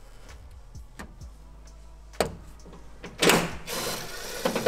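Light clicks and taps of a plastic cap being worked off a rear-wing mounting post, then about three seconds in a loud knock followed by a cordless ratchet buzzing as it spins loose the wing's mounting nut.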